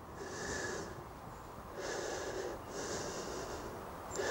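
A man breathing heavily close to the microphone: four audible breaths, each a short hiss under a second long, with short pauses between.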